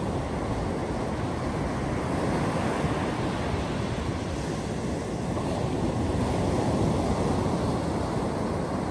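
Small ocean waves breaking and washing up a sandy beach: a steady rush of surf that swells louder twice as waves come in.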